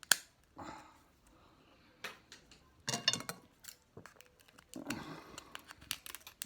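Oyster shell and utensil clicking, knocking and scraping against a plate as an oyster is worked open: scattered sharp clicks in a few clusters, the loudest right at the start.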